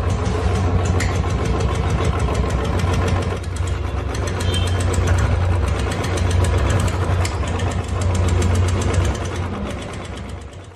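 Royal Enfield single-cylinder engine idling with a quick, regular tik-tik ticking, which the owner traces to a loose auto-decompressor pin on the camshaft. The sound fades away near the end.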